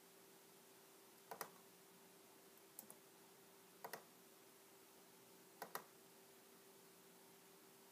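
Faint computer mouse clicks: four of them, each a quick pair of ticks, spaced about a second to a second and a half apart, over a faint steady hum.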